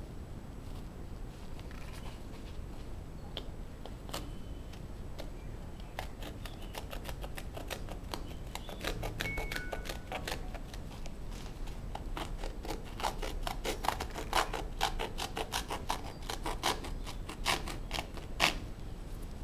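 A knife blade cutting through the side of a Vans sneaker's upper, giving a series of sharp ticks as the material parts: sparse at first, then coming fast and louder in the second half.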